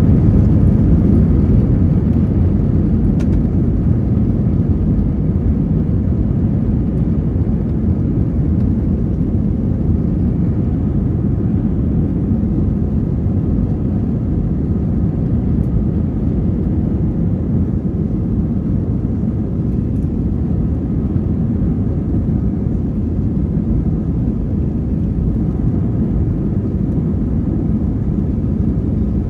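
Steady low rumble of an Airbus A320's twin IAE V2527-A5 turbofan engines and rushing air heard inside the passenger cabin during the climb after takeoff, easing slightly over the first several seconds.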